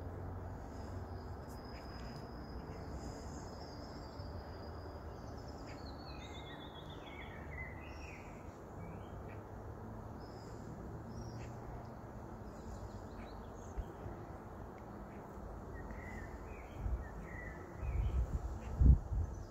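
Birds singing, including a descending trilled phrase, over a low steady rumble from a distant electric train moving away. Near the end, wind buffets the microphone in gusts.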